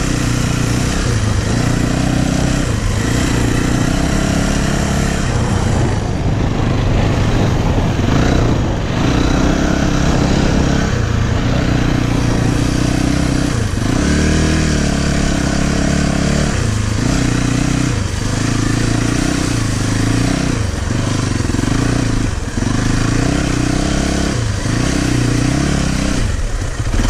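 Yamaha motocross bike engine under way, revving up and easing off over and over, its pitch climbing and dropping every second or so.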